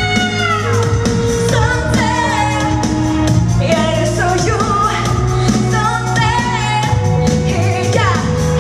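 Woman singing into a handheld microphone over a pop backing track, her voice sliding up and down between notes in long phrases.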